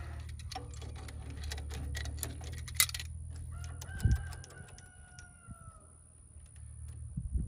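Wrench clicking against the mounting bolts of a tractor's starter motor as they are loosened, with a sharp metallic click about three seconds in and a dull knock a second later. A rooster crows once in the background, one long call that falls slightly at the end.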